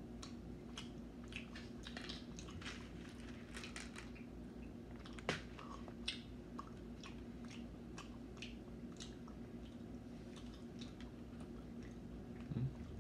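Close, quiet chewing of a jelly bean: irregular soft wet mouth clicks, with two sharper clicks about five and six seconds in.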